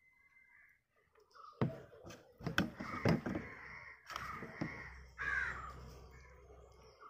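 A crow cawing several times in a row, harsh calls starting about a second and a half in and dying away near the end.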